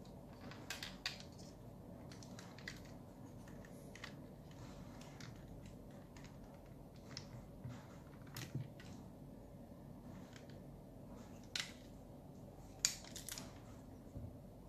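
Sparse clicks and light knocks of a transformable Optimus Prime figure's parts being handled and pushed into place, with a few sharper snaps in the second half.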